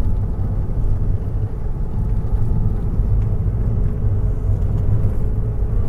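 Moving road vehicle running steadily: a continuous low engine and road rumble with a faint steady hum above it.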